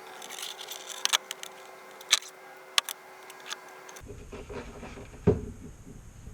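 Sharp clicks and small handling noises from hand tools working on wires, stripping and crimping the fuel pump's wiring, with several loud snaps over a faint steady hum. A single heavier knock comes a little after five seconds.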